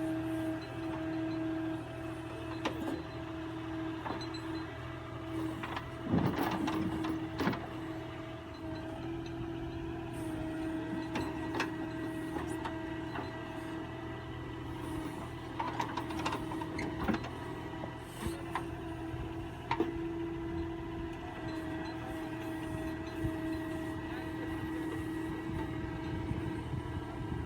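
Tractor-mounted backhoe loader working: the engine runs steadily with a constant whine, and scattered knocks and clanks come from the bucket and its load.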